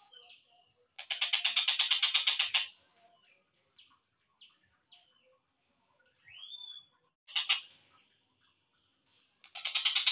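Slowed-down recording of tengkek buto kingfisher calls. A fast, harsh rattling trill at about ten pulses a second sounds twice, about a second in and again near the end. Between the trills come scattered short chirps and a single rising whistle.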